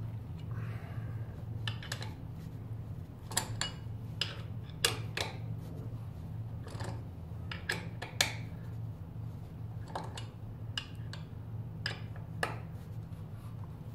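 Irregular sharp metallic clicks and clinks of a tool working on a bicycle crank bolt, tightening the crank arm onto the mid-drive motor's spindle, over a steady low hum.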